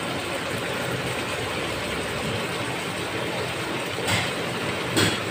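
Steady sizzling of potatoes and a freshly added onion, ginger, garlic and tomato paste frying in a pan, with two sharp knocks near the end as the steel cup of paste is emptied into it.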